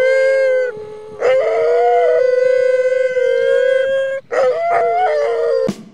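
Two harnessed sled dogs howling together in long, held howls, one voice steady and a higher one wavering above it. They break off briefly about a second in and again just past four seconds.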